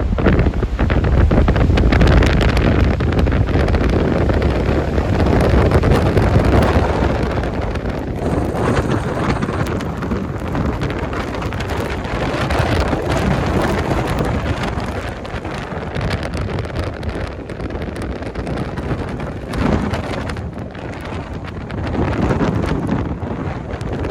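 Blizzard wind buffeting the microphone: a loud, dense rush, heaviest in the low end, that swells and eases in gusts.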